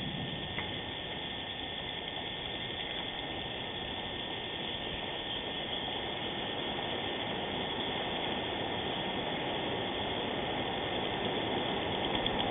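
Steady hiss of even noise with no clear bird calls in it, growing slightly louder; a faint click about half a second in and another near the end.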